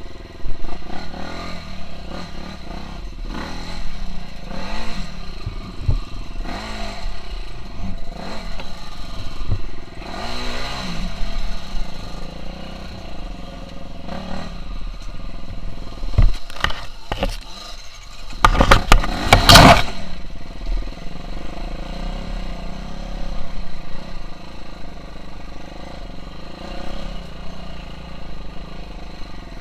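KTM 350 SX-F single-cylinder four-stroke motocross engine revving up and down repeatedly while the bike is ridden, with clattering knocks from the bike. About two-thirds of the way through comes a short, loud rushing burst that drowns the engine.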